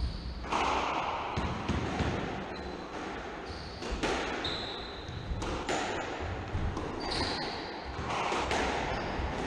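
Squash rally: the ball cracks off rackets and the court walls about every second or two, with a few short, high squeaks of court shoes on the wooden floor.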